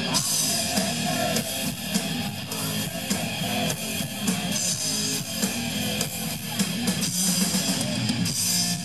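Hard rock band playing live through a concert PA: electric guitar, bass guitar and a drum kit with cymbals.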